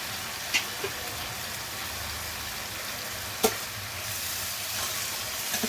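Spiced onion masala with tomatoes and potatoes sizzling in hot oil in a pan, a steady frying hiss. It is being stirred, with two sharp clicks of the spatula against the pan.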